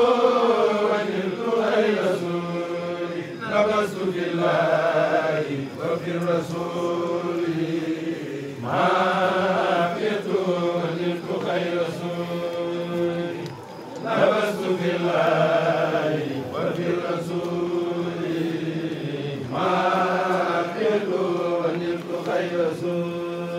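A kourel of men's voices chanting an Arabic khassida together, unaccompanied, in long drawn-out held notes. The phrases break off and start again every five or six seconds.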